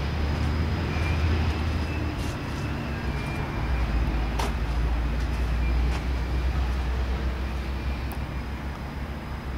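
A motor vehicle's engine running with a steady low rumble that drops a little in pitch about four seconds in, with one sharp click midway.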